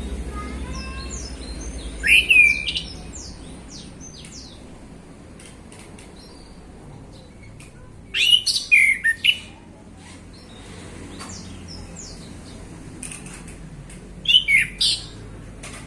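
Male orange-headed thrush singing: three short, loud bursts of rapid, varied whistled song, about two seconds in, around eight seconds and near the end, with faint chirps between them. Beneath the song is a low background rumble.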